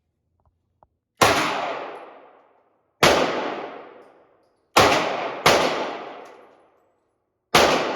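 Six single gunshots, fired at an uneven pace between about half a second and two seconds apart. Each is a sharp crack with a ringing echo that dies away over about a second, the last one right at the end.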